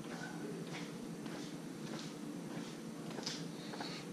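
Faint, quiet room tone with a few soft footsteps on a concrete garage floor.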